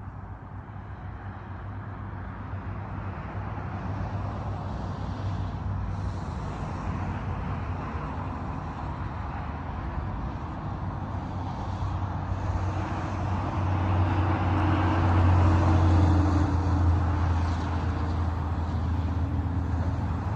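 Motor of an expandable hunting blind's telescoping lift tower running steadily with a low hum as the tower retracts and lowers the blind box. It grows louder from about two-thirds of the way through.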